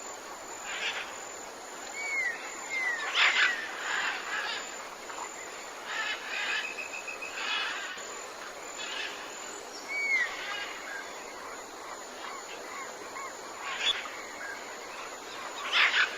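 Tropical jungle ambience: many birds calling and whistling at irregular moments, some calls gliding in pitch, over a steady background hiss of insects and forest.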